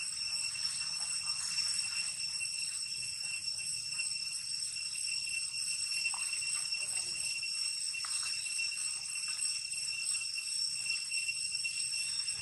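Insects droning with a steady high-pitched whine, unbroken throughout, with a few faint short chirps over it.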